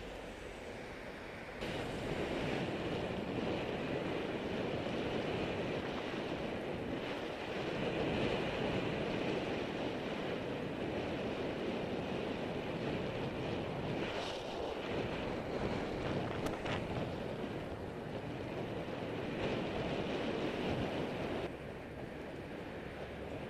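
Riding noise from a camera on a moving bicycle: wind rushing over the microphone mixed with the rumble of the tyres on the asphalt cycle path. The noise steps up suddenly about a second and a half in and drops back just as suddenly near the end.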